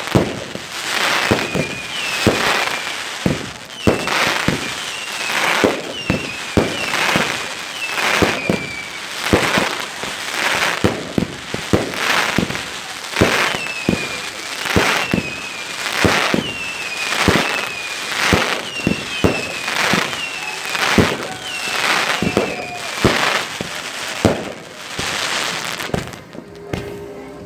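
Firework display: a steady string of sharp bangs and crackles, one or two a second, with short high whistles in between; the bangs stop near the end.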